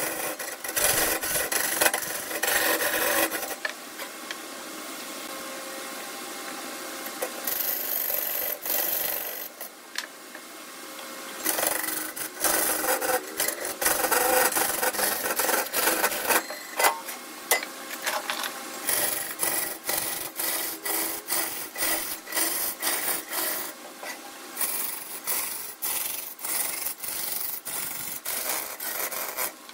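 Hand scraping strokes on wood, an abrasive rasping rub. In the second half it turns into a quick rhythm of short strokes, about two a second.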